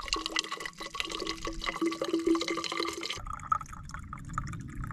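Water trickling and gurgling through a screw-on backpacking water filter, a rapid patter of small drips with a wavering pitched gurgle. About three seconds in it stops abruptly and a low rumble takes over.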